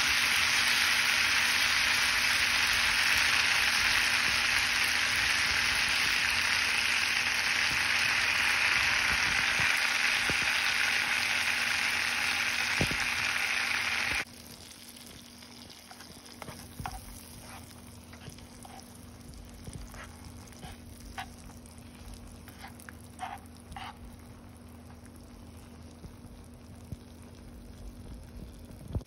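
Butter sizzling as it melts in a hot pot. A loud, steady hiss cuts off suddenly about halfway through, leaving a quieter bubbling sizzle with scattered small pops.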